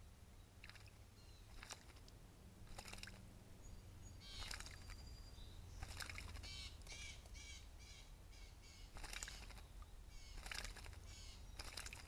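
Faint splashing from a blue jay bathing in a shallow stream pool, fluttering its wings in the water in several short bouts of quick splashes.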